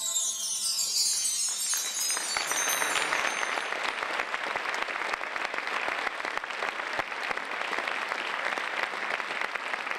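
Audience applauding at the end of a stage act. The last notes of the music ring out and fade over the first second or so as the clapping builds, then steady applause.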